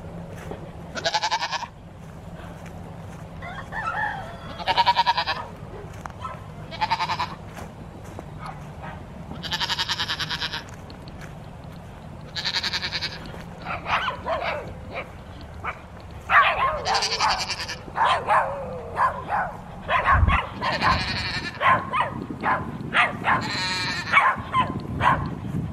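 Goats bleating over and over, one call every few seconds at first, then more often in the second half.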